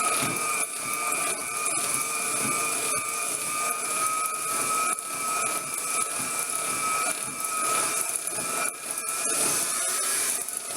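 Electric hand mixer running steadily with a high whine and irregular clicks, its beaters mixing cake batter in a bowl.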